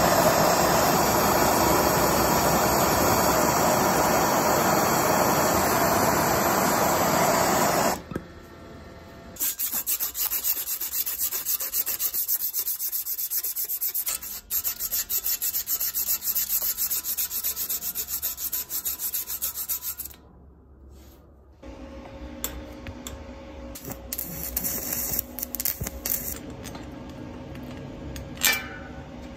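A brazing torch burns steadily at the steel bicycle frame's dropout for about the first eight seconds. Then the steel frame tube is hand-sanded in a fast run of rasping strokes lasting about ten seconds, with a brief break midway. Near the end come quieter tool sounds at the front wheel's disc brake and hub, with a sharp click just before the end.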